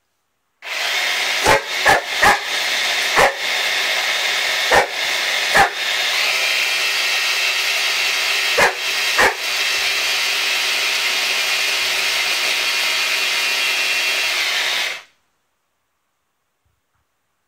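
Small electric food chopper's motor running steadily with a high whine as it chops bread into crumbs, stopping abruptly about fifteen seconds in. Over it a boxer dog gives about eight short, sharp barks in the first ten seconds.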